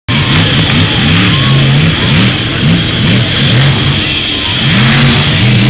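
Monster truck engine revving hard, its pitch rising and falling again and again over a steady wash of noise.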